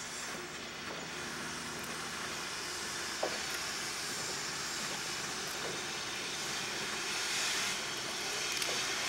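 Sierra Railway No. 28, a Baldwin 2-8-0 steam locomotive, approaching with a freight train, its steam hissing steadily and growing a little louder near the end.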